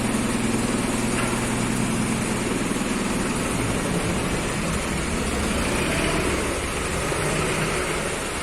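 Forklift engine running steadily; its low hum drops back about two seconds in.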